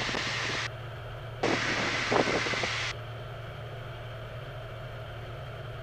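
Steady drone of a Cessna Skylane's single piston engine and propeller, heard through the cockpit intercom. In the first three seconds two bursts of radio static hiss come and go, the second with a faint, unintelligible voice in it.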